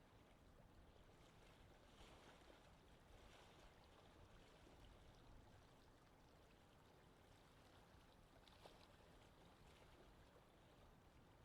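Very faint water ambience, a soft even wash, with a single light tick about eight seconds in.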